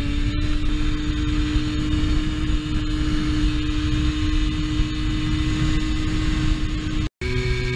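Hercules K50 RL moped's small two-stroke engine running steadily at high revs under way, with heavy wind rumble on the microphone. The engine tone rises a little at the start, cuts out for a moment near the end, and comes back at a different pitch.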